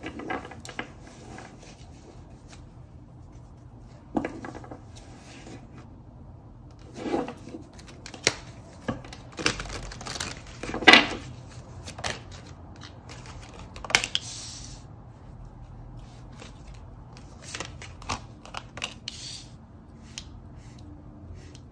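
Oracle cards being handled, shuffled and laid down on a table: irregular clicks and taps, with a few short riffling rustles. The sharpest snap comes about halfway through.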